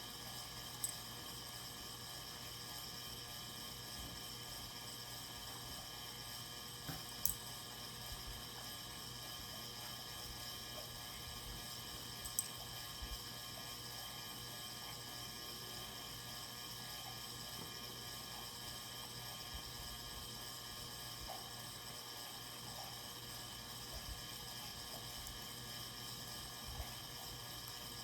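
Steady background hiss with a few sharp clicks and small taps as hands handle and wrap a light switch cover plate.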